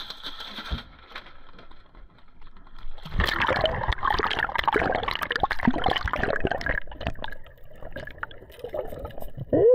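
Sea water splashing and gurgling around the camera as it goes from the boat into the water and under the surface. It is loudest from about three to seven seconds in, then fades.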